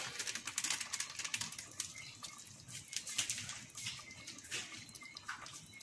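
Curry chicken cooking in a pot on the stove: a soft sizzling hiss with many small, irregular crackles and pops.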